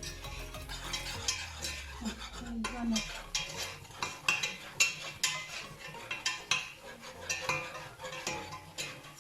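A utensil stirring butter and flour in a pot to make a roux, scraping and clinking against the pot in quick, irregular strokes.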